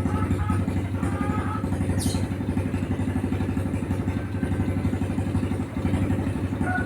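A small engine idling steadily with a low, rapid pulse. Short bird chirps sound over it in the first second or so, and one sharp, high chirp comes about two seconds in.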